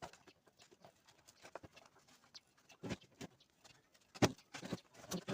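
Faint scattered clicks and taps from hands working a car door subwoofer apart, pulling its inner parts out bit by bit; the loudest knocks come about three and four seconds in.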